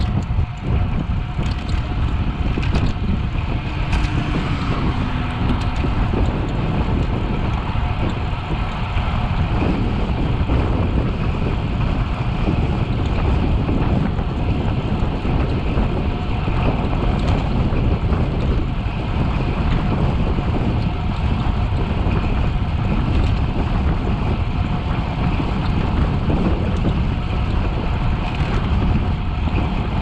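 Wind buffeting the microphone of a cyclist riding at speed on a road bike, a steady rushing noise heaviest in the low end.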